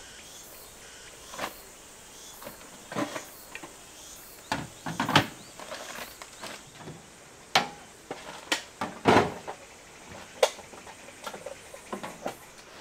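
Scattered, irregular knocks, clicks and clatters of things being handled and set down, the loudest about five, seven and a half and nine seconds in.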